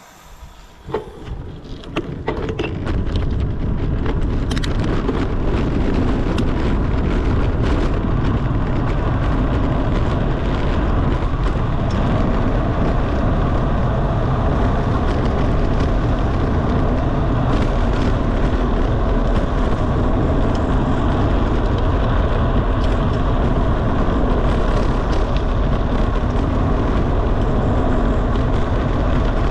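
Wind rushing over the microphone of a camera on a bicycle speeding downhill, building over the first few seconds into a steady loud low rush. A few sharp clicks and knocks come through in the first couple of seconds.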